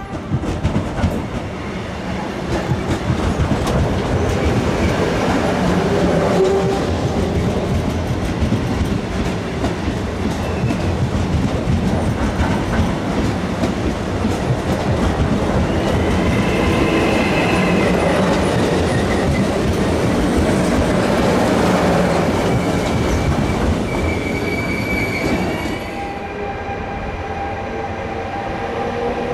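A train running past close by: wheels clattering over rail joints and points, with brief high wheel squeals about halfway through and again near the end. After about 26 s the clatter eases to a quieter hum with a steady tone and a tone that rises.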